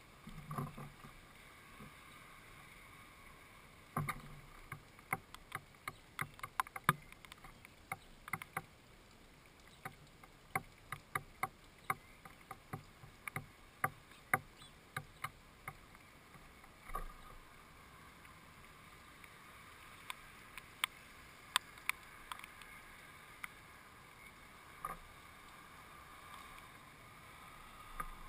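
Sparrows tapping and scratching on the boards of a wooden bird feeder as they land, hop and feed: irregular sharp clicks and hollow knocks. The taps come thick and fast through the middle, then only a few scattered ones near the end.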